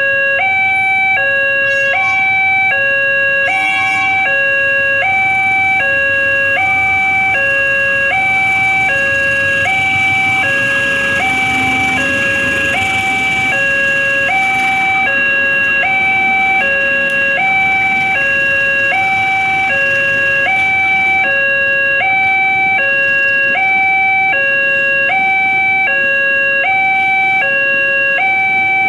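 Railway level-crossing warning alarm from the loudspeaker on the signal post: a continuous electronic two-tone, alternating low and high about once a second. About ten seconds in, the noise of a passenger train running over the crossing rises beneath it.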